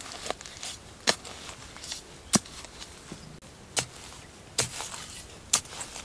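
A knife blade stabbing and chopping into hard, dry soil to dig a hole, with sharp strikes roughly once a second and loose dirt scraping between them.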